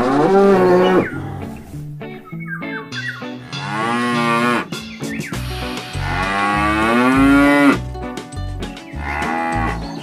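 Cows mooing, several long drawn-out moos one after another, over background music with a steady bass line.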